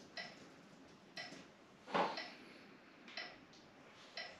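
Steady ticking, about one short tick every second. About two seconds in, a single brief, louder sound stands out over the ticks.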